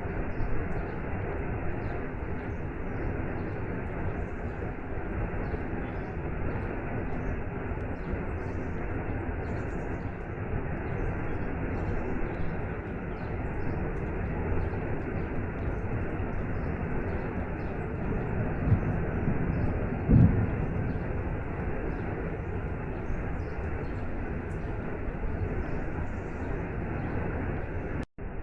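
Waterfall and rain: a steady rush of falling water. A brief low thump stands out about two-thirds of the way through.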